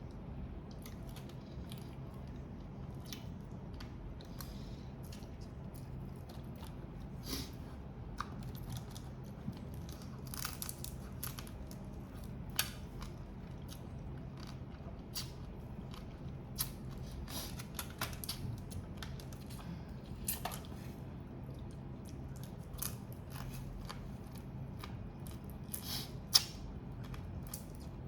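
Prawn and crab shells being cracked and picked apart while eating, with irregular crunches, clicks and chewing over a steady low hum; one sharp snap near the end.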